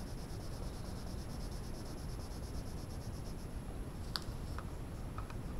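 Red colored pencil shading quickly on graph paper: a fast, even run of scratchy back-and-forth strokes, then a sharp click about four seconds in.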